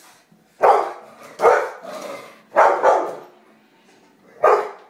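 A large dog barking loudly, about five short barks roughly a second apart with a longer pause before the last. It is barking at a spray bottle that it is afraid of.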